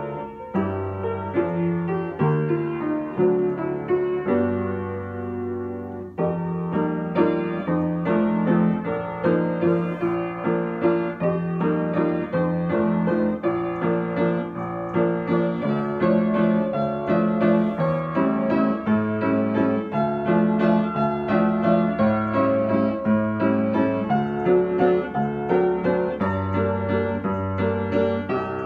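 Solo upright acoustic piano played with a melody over bass notes. It softens for a moment about four to six seconds in, then comes back fuller and louder.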